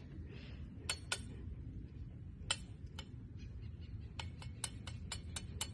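Sharp, light clicks: a few scattered ones at first, then a quick run of about three a second in the second half, over a steady low background rumble.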